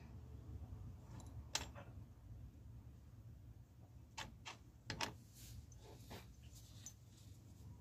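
Mostly quiet, with a low steady hum and a few faint, short clicks and light taps, the loudest around five seconds in.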